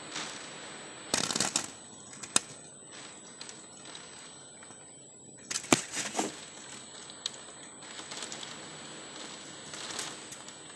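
Hurricane Irma's wind blowing in a steady hiss, with gusts hitting the phone's microphone in loud crackling bursts about a second in, around six seconds in and again near the end.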